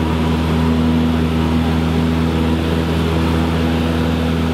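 Small propeller airplane's piston engine and propeller in a steady climb-out drone, heard from inside the cabin.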